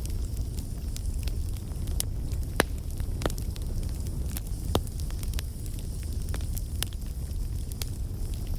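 Wood bonfire burning: a steady low rumble of flames with scattered sharp crackles and pops, two louder pops about two and a half and nearly five seconds in.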